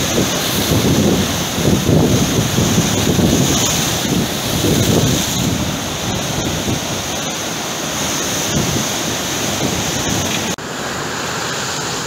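Rough sea surf breaking and washing over rocks and a seawall in irregular surges, with wind buffeting the microphone. Near the end the sound changes abruptly to a steadier wash of breaking waves.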